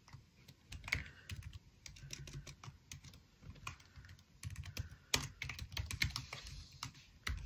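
Typing on a computer keyboard: uneven single keystrokes with short pauses between them, a few of them louder, as a line of code is entered.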